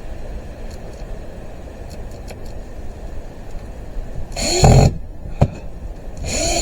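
Cordless drill run in two short bursts, each winding up in pitch and back down, about four seconds in and again near the end, with a sharp knock between. A steady low rumble runs underneath.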